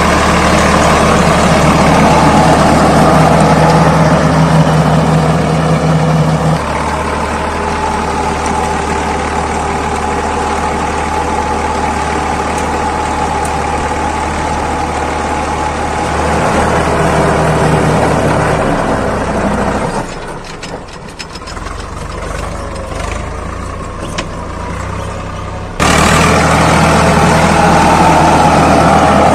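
Swaraj 855 FE tractor's diesel engine running steadily under load as it pulls a PTO-driven rotavator through the soil. The sound drops for several seconds in the latter part, then comes back louder all at once near the end.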